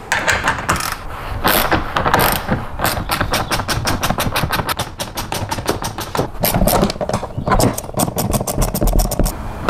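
Hand ratchet wrench clicking in runs of rapid, even clicks as the 10 mm bolts holding the frunk tub are loosened, after a few seconds of scattered knocks from handling the tool.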